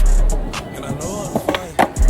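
Hip-hop track with deep 808 bass notes and a rapped vocal. Near the end come two sharp clacks.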